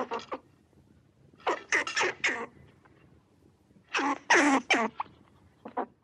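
Squirrel calling in clusters of three or four quick calls, a cluster about every two seconds, with a last short pair near the end.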